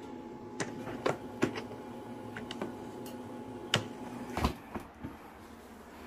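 Sharp clicks and knocks from hands working the rubber door seal and door of a wall-mounted mini washing machine, five or so in all, the loudest and deepest about four and a half seconds in. Under them runs a steady hum that stops shortly after.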